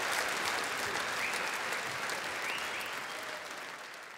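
Large audience applauding, a dense crackle of many hands clapping that gradually fades away.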